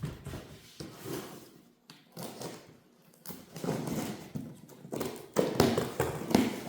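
Unboxing noises: cardboard and packing being handled and rustled, with irregular knocks and clunks as parts are lifted out. The handling is busier and louder in the second half.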